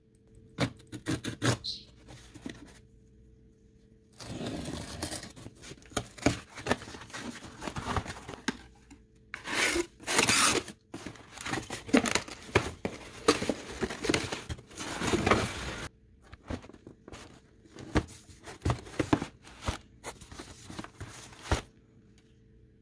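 Packing tape and corrugated cardboard being torn and the flaps of a shipping box pulled open, in noisy bouts of tearing and rustling, with clicks and knocks from the box being handled.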